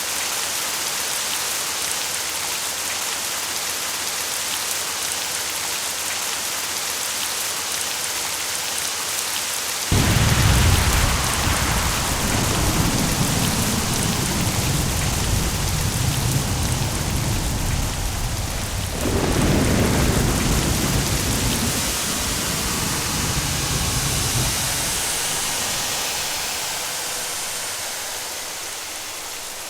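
Steady rain, joined about a third of the way in by a sudden clap of thunder that rolls on as a deep rumble. A second crack comes about two-thirds of the way in, and the rumble then dies away, leaving the rain.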